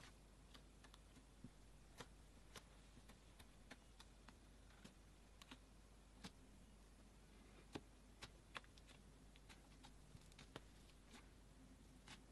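Faint, irregular clicks and small pops of black slime being pressed and poked with fingertips.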